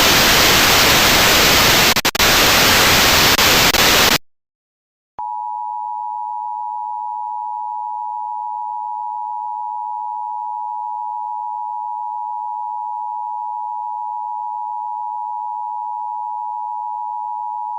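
A harsh burst of static noise lasts about four seconds and cuts off sharply. After a second of silence, a steady, unbroken alert tone near 1 kHz follows: the Emergency Alert System attention signal that comes before a tornado warning.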